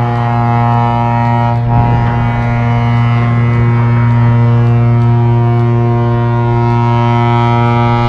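A ship's horn sounding one long, deep, steady blast during a sideways ship launch, with the rush and splash of water as the hull slides off the quay and tips into the canal.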